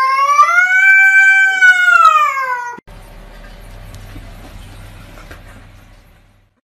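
A cat gives one long, loud yowl at its own reflection, read as another cat. The yowl rises and then falls in pitch for nearly three seconds and cuts off abruptly, leaving only faint low room noise.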